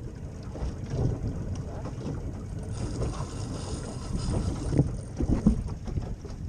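Wind rumbling on the microphone over water and handling noise on a fishing kayak, with a few short knocks about five seconds in.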